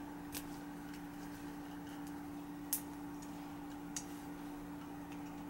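A few faint, isolated clicks, about three, from a small plastic catcher's mask being worked onto a bobblehead figure, over a steady low hum.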